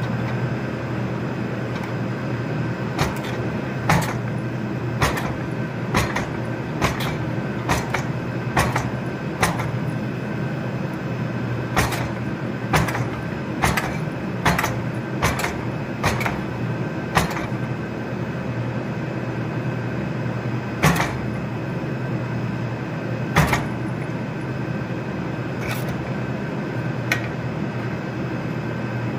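Fly press with fullering dies striking hot steel as the dragonfly's tail is drawn out: sharp metal knocks about once a second for a long run, then a few scattered ones. A steady machine hum sits under it.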